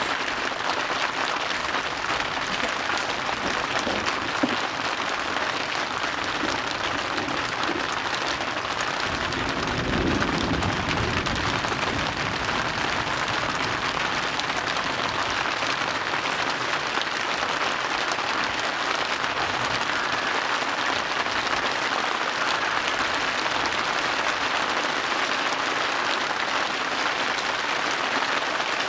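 A steady, even hiss, with a short low rumble about ten seconds in.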